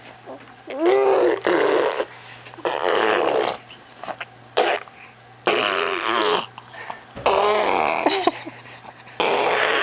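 A baby blowing wet raspberries, buzzing her lips so spit flies, over and over in bursts of about a second, some with her voice sounding through them.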